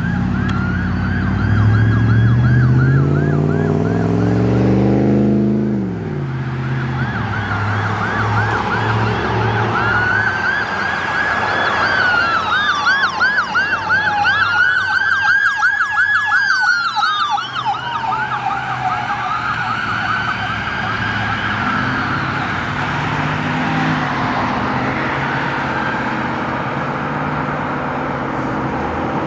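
Electronic emergency sirens of a responding fire department medical vehicle and ambulance: a fast yelp repeats throughout, with slower rising-and-falling wails overlapping near the middle. A vehicle engine climbs in pitch over the first few seconds as it accelerates, then drops away.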